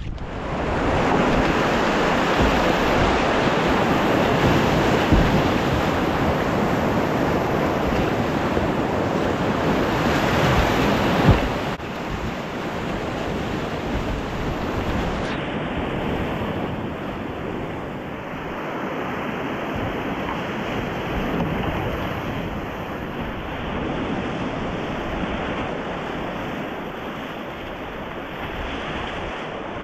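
Rushing whitewater of a river rapid, with wind buffeting the microphone of a helmet-mounted GoPro. About eleven seconds in there is a single knock, and the water sound then carries on a little quieter.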